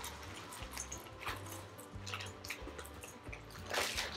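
Semi-sweet chocolate chips poured from a plastic bag into a small saucepan, a stream of light pattering clicks, with a louder rustle of the bag near the end. Quiet background music with a steady bass plays underneath.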